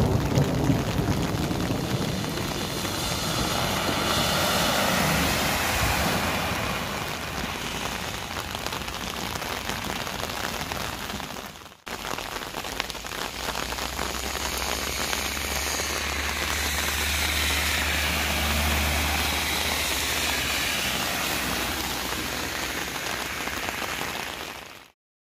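Torrential rain pouring onto a flooded road and pavement, a steady hiss that breaks off briefly about halfway through. A low rumble runs under the rain for much of the second half, and the sound cuts off suddenly near the end.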